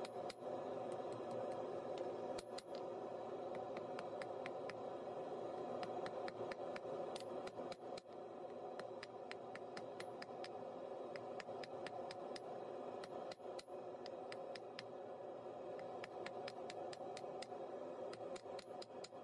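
Hand hammer striking a hot steel bar on an anvil, many quick blows in runs, over a steady rushing noise.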